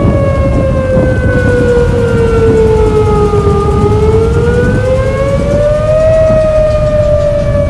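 Outdoor civil-defense warning siren sounding for a tornado, very loud. Its pitch slowly falls for about four seconds, rises again about two seconds later, then starts to fall once more. A heavy low rumble runs underneath.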